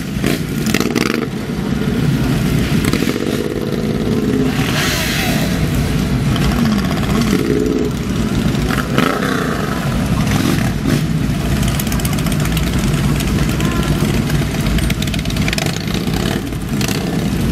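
A large pack of motorcycles running together and pulling away at low speed, with individual engines revving up and down over the steady rumble of the rest.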